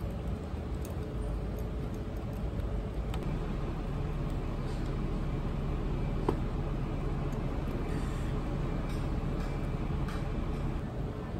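Steady low rumble of traffic in the background, with a few light clinks of a metal spoon against ice and the glass of an iced lemon tea, the sharpest about six seconds in.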